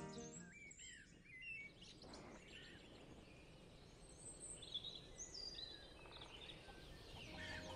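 Faint songbirds chirping and whistling in short phrases over a low outdoor background hiss.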